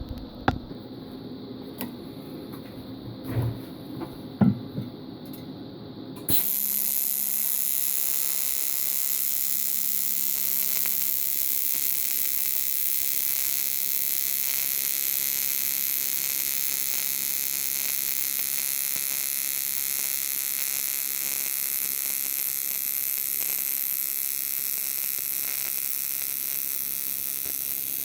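TIG welding arc on aluminium striking about six seconds in and then buzzing and hissing steadily. A few sharp clicks come before it.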